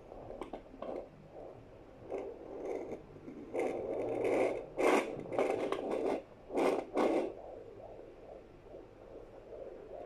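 A Contec Sonoline A pocket fetal doppler gives out scraping, crackling noise from its speaker as the gelled probe slides over a pregnant belly, searching for the baby's heartbeat. Louder rushes of noise come in bursts between about three and a half and seven seconds in.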